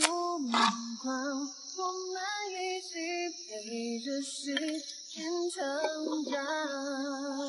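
A high voice singing a tune unaccompanied, holding and stepping between notes, with a short clatter about half a second in.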